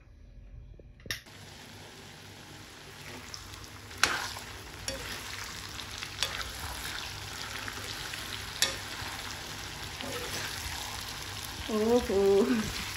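Sliced raw mango frying and sizzling in a wok while it is stirred with a steel spoon, the spoon clicking sharply against the pan a few times. Near the end there is a short pitched, voice-like sound.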